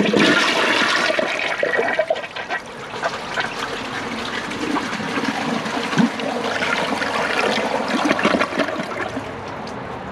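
Kohler Wellworth Ingenium toilet flushing, water rushing into the bowl and draining away, loudest at the start and easing off toward the end. The flush is slower than normal for this model because its siphon jet is defective.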